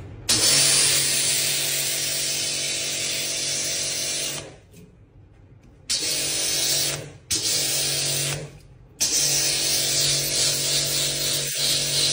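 Handheld electric rotary scrubbing brush whirring as it scrubs a wet, soapy shoe insole, its bristles hissing against the insole. The motor is switched off and on again three times, giving four runs with short pauses between them.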